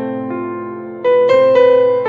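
Background keyboard music: sustained chords that change every half second or so, with a louder chord struck about a second in.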